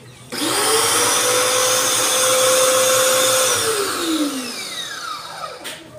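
Compact electric pressure washer switched on: its motor and pump whine up to speed within a fraction of a second, run steadily for about three seconds, then are switched off and wind down with a falling whine. A short click follows near the end.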